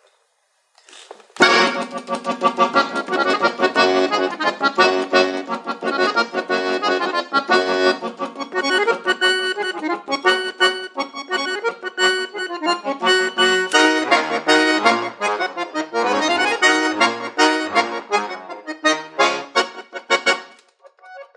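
Solo accordion playing a fast, dense piece with many quick notes and chords. It comes in suddenly about a second and a half in and stops shortly before the end.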